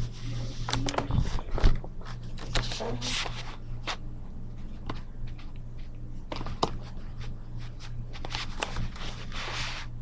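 Handling noise from a handheld camera being carried: scattered rustles, scrapes and clicks, with a sharper knock about six and a half seconds in, over a steady low hum.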